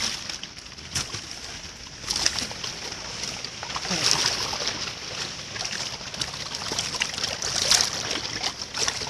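River water splashing and sloshing, with a steady rush and many small irregular splashes that swell now and then.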